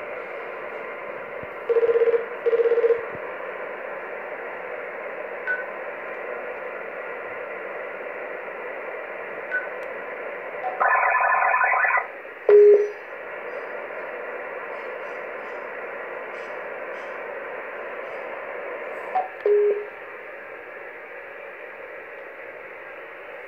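Codan NGT SRx HF transceivers hissing with the steady receiver noise of an open SSB channel. Two short beeps come about two seconds in. About eleven seconds in there is a burst of roughly a second of several tones at once, the ALE/CALM call signalling, and single beeps follow shortly after and again near twenty seconds.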